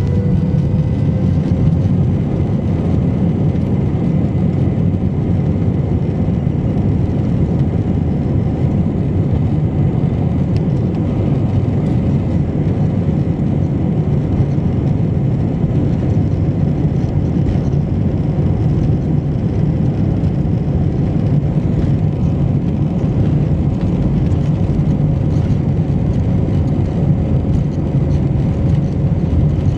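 Airliner's jet engines heard from inside the cabin at low thrust while taxiing: a steady low rumble with a faint whine that creeps up slightly near the end.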